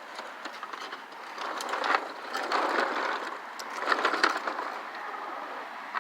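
Handling noise from an upright vacuum cleaner's plastic body as it is moved and turned around: rustling, knocks and small clicks in a few irregular bursts. The motor is not running.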